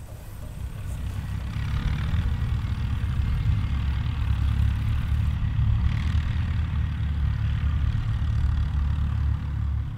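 David Brown Cropmaster tractor engine running under way, heard close from on board: a low, steady engine rumble that builds over the first second or so as the tractor gets going, then holds even.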